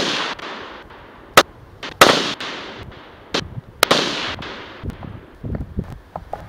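Russian-made SKS semi-automatic rifle in 7.62×39 fired in a quick string of shots over the first four seconds or so, each sharp crack trailing off in echo.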